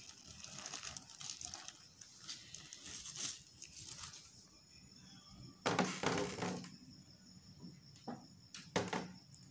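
Butter paper crinkling and rustling as it is handled, with two louder rustles, about six seconds in and near the end.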